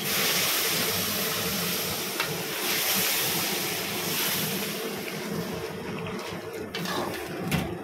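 Water poured from an aluminium pressure cooker into hot roasted semolina in a large aluminium kadai, sizzling and bubbling as it hits the pan, the first step of cooking rava kesari. The sizzle starts suddenly and slowly dies down, with a few sharp knocks near the end.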